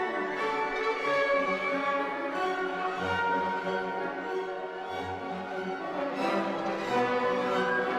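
Orchestral background music led by strings, with sustained notes over a slowly moving bass line.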